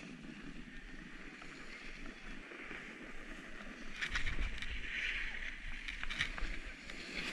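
Snowboard or ski edges sliding over groomed packed snow: a steady hiss that turns louder and rougher about four seconds in, with a low rumble and a few short scrapes.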